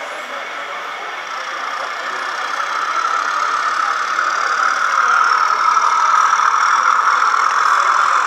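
Model diesel locomotive running on the layout's track, a steady mechanical running sound that grows louder over the first five seconds or so and then holds.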